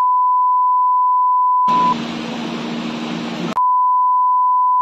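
Censor bleeps: a steady high-pitched tone laid over the audio to mask abusive words. It runs for about two seconds, breaks for a stretch of room noise with a low hum, then comes back about three and a half seconds in.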